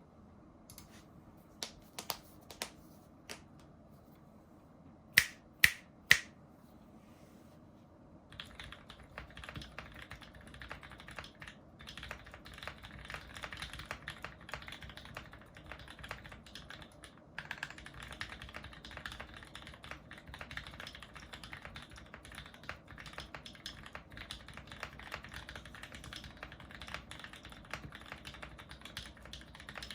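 Typing on a mechanical keyboard with lubed, filmed Gateron Merlot tactile switches. It opens with a few scattered key clicks and three loud sharp clicks about half a second apart. After about eight seconds comes steady, fast continuous typing, with one brief pause midway.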